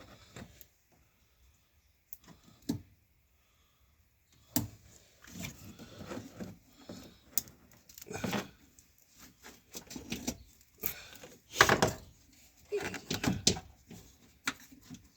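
Scattered clicks, knocks and rattles of hands working the plastic wire connectors and parts around a car's wiper motor, with a quiet stretch of a few seconds near the start.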